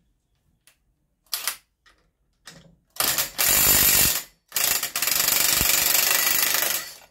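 Cordless impact driver hammering on a chainsaw clutch to break it loose. A short burst about a second and a half in is followed by two long runs of rapid impacts from about three seconds on, with a brief break in between.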